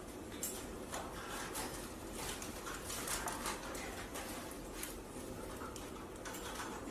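Faint, soft, short squeaks and chirps from a newborn puppy and a small parrot lying together, over a steady low hum.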